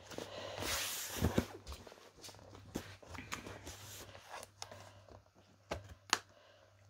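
Cardboard packaging being handled: a rustling, scraping noise for the first second and a half, then fainter scattered taps and knocks, with one sharp click about six seconds in.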